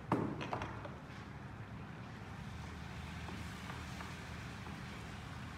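A sharp knock and a few light clatters as plastic spice containers are handled, then steady low background noise from the stove area.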